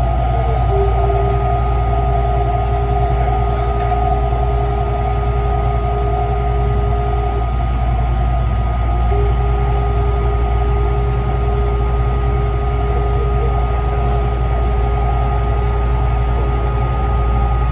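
Taichung MRT Green Line metro train running steadily, heard from inside: a continuous low rumble with steady whining tones from the drive. One mid-pitched tone cuts out for a couple of seconds midway and then returns.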